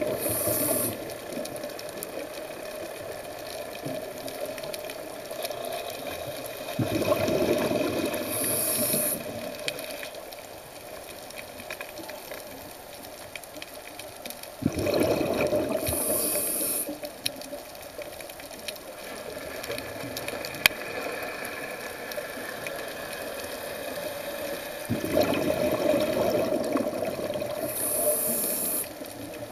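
Underwater sound of a scuba diver's regulator breathing: a rushing burst of exhaled bubbles every eight to ten seconds, each lasting two to four seconds with a short hiss near its end, over a steady low water hiss.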